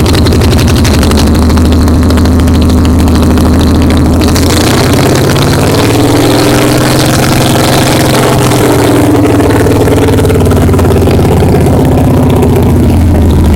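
1968 Ford Galaxie's engine running on its first start after an engine repair: it holds a steady idle, is revved slowly up about a third of the way in, then eases back down to idle near the end.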